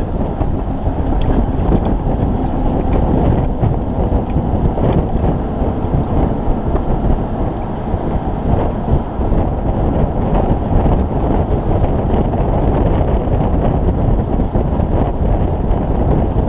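Heavy wind buffeting on a motorcycle-mounted camera's microphone: a loud, steady low rumble with no clear engine note.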